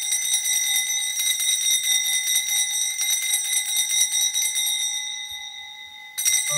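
Altar bells shaken in a fast, continuous jingle for the elevation of the chalice at the consecration of the Mass. The ringing dies away after about five seconds, then starts again briefly near the end.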